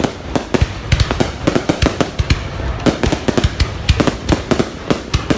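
Fireworks going off: a rapid, irregular string of sharp bangs and cracks, several a second.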